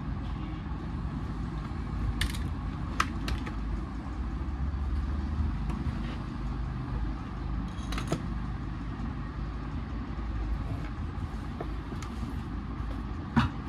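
Scattered clicks and clinks of a screwdriver and small parts as a petrol chainsaw is dismantled by hand, over a steady low background rumble. A few sharp knocks stand out, around two and three seconds in, about eight seconds in and near the end.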